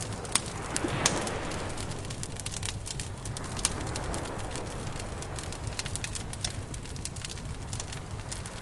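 Campfire burning, with frequent sharp crackles and pops from the wood over a steady low rush, the loudest pop about a second in.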